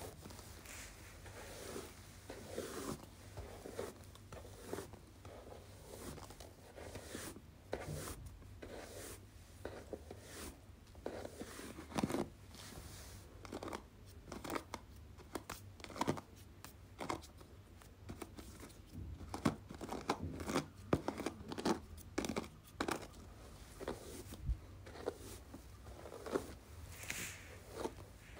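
Hairbrush strokes: repeated short, scratchy swishes, roughly one or two a second and uneven in strength.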